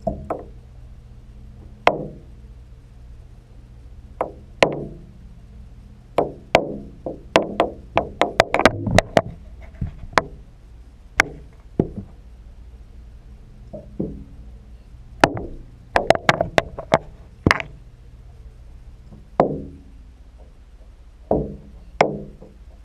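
Irregular sharp knocks and taps, each ringing briefly, heard through a waterproof camera housing under water in a tub. Some come alone and some in quick clusters, busiest in the middle, over a steady low hum.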